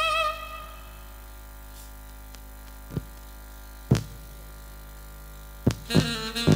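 The live music's last held note dies away, leaving a steady electrical hum. Over the hum come a few sharp knocks: two on their own about 3 and 4 seconds in, then a quick cluster of knocks and thumps near the end.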